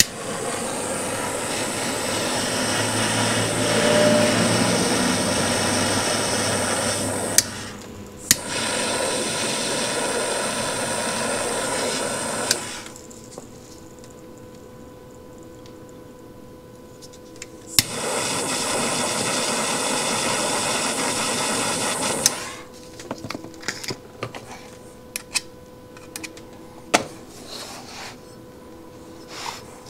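Small handheld butane torch hissing steadily as its flame heats a joint for soldering, in three runs of a few seconds each, with a sharp click as it is lit again. Light metal taps and clicks follow near the end.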